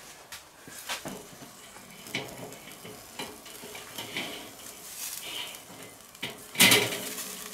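Burger patties sizzling in a stainless-steel wire grill basket over a charcoal kettle grill, with light metal clinks as the basket is turned over. About three-quarters of the way through, a louder metal clatter as the basket is set back down on the grate.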